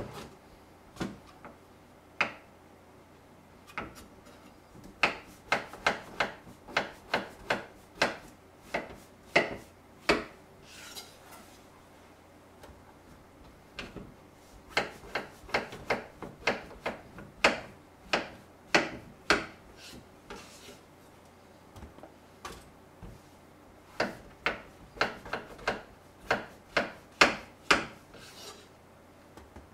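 Kitchen knife slicing king oyster mushrooms on a wooden cutting board. Each stroke is a sharp knock on the board, coming in runs of about two a second with short pauses between the runs.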